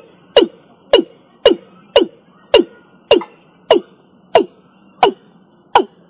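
Watercock (Gallicrex cinerea) calling: an even series of short notes, each starting sharply and falling in pitch, a little under two a second.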